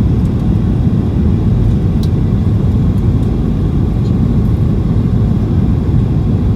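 Steady cabin noise inside a Boeing 737-800 with CFM56-7B engines, engine and airflow noise heard from a seat over the wing, loud and unchanging.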